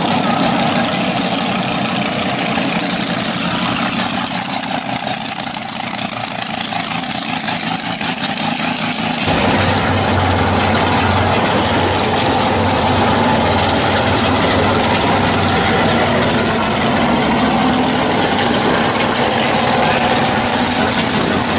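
Drag cars' engines running at low speed and idling as they roll through the pits. About nine seconds in the sound changes abruptly to a louder, deeper engine note from a 1980s Chevrolet Monte Carlo SS drag car driving slowly past.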